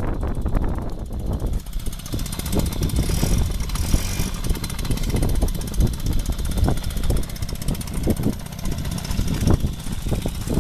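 Suzuki FZ50 moped's 49 cc two-stroke single-cylinder engine idling steadily on its stand.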